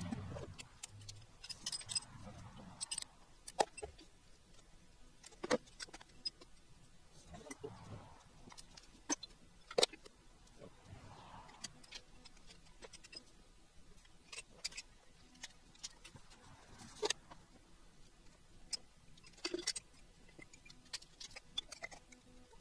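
Irregular metallic clinks, taps and ticks of hand tools and engine parts being handled while an engine is taken apart, with a few sharper knocks among them.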